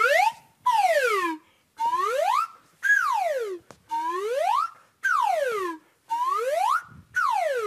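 Metal slide whistle blown in alternating swoops as the plunger is pushed and pulled: a rising glide, then a falling one, over and over, about eight in all, each under a second with a short break between.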